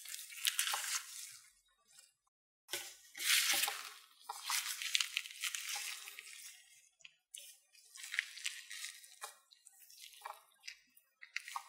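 Food-preparation handling sounds: irregular bursts of crinkling and rustling, with some soft wet squishing, and a short pause about two seconds in.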